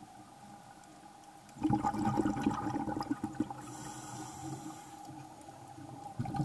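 Underwater sound with a faint steady hum, then about a second and a half in a loud gurgling rush of bubbles lasting about two seconds, as from a scuba diver exhaling through a regulator; it dies down and starts to build again near the end.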